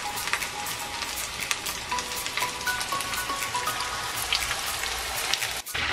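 Breaded chicken sticks deep-frying in hot oil in a pan, the oil sizzling steadily with dense fine crackles. The sizzle drops out for an instant near the end.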